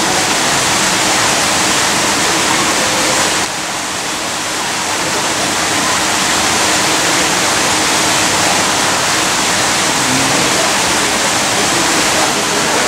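Steady, loud rushing noise like running water, dipping in level about three and a half seconds in and then building back up.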